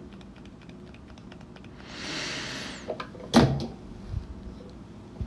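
Faint clicks of handling, a short rushing hiss about two seconds in, then a single knock a little later.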